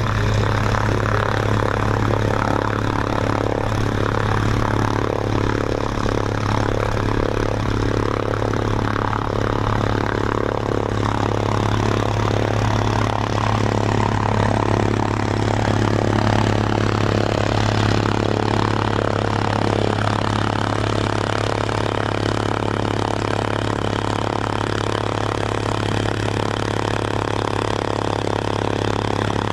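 Steady engine drone, a constant low hum that holds the same pitch and loudness throughout.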